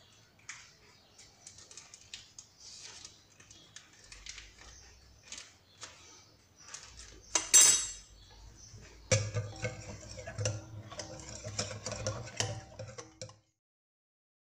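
Metal balloon whisk beating a thin batter in a glass bowl, its wires clicking against the glass. The clicks are light and scattered at first, with one loud clink about seven seconds in, then dense and rapid until the sound cuts off near the end.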